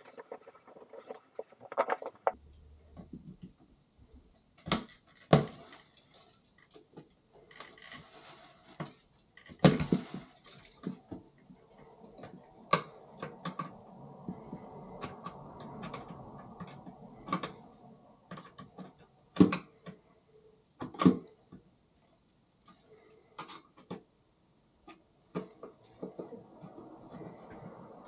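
Hands working on a plastic pipe ventilation fan in the ceiling: irregular sharp clicks and knocks from its grille and housing, with plastic rustling in between.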